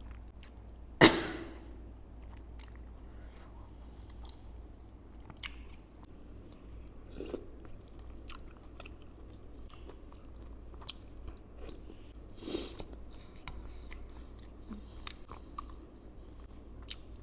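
Close-miked chewing and biting of bakso meatballs with crunchy cartilage, with small clicks and crunches. One loud sharp knock about a second in.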